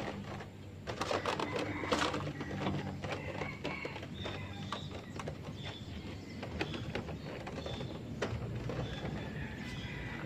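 Cloth rubbing and light clicks and knocks as a motorcycle's seat and body panels are wiped by hand, busiest about one to two seconds in. Short high chirps of small birds are scattered throughout, over a faint low hum.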